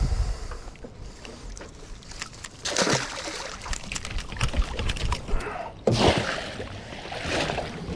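Mesh crab pot being handled, its netting and frame rattling with small clicks. About six seconds in, water splashes as the pot is pushed back into the water.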